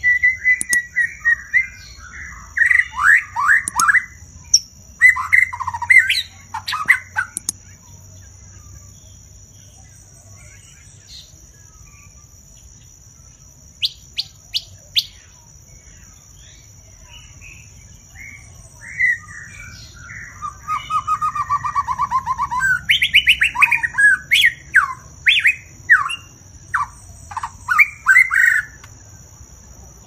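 White-rumped shama singing: two long bouts of rapid, varied whistles and sharp notes, separated by a quieter stretch broken only by a few short high notes.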